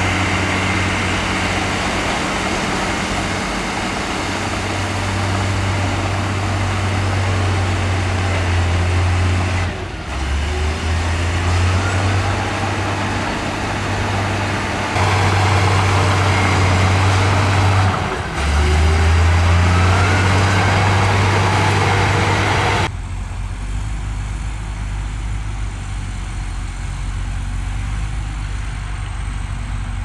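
Diesel engines of heavy earthmoving machines (bulldozer and dump truck) running at work: a loud, deep, steady engine drone whose pitch steps up and down. It changes abruptly three times, and for the last quarter it drops to a quieter, duller engine rumble.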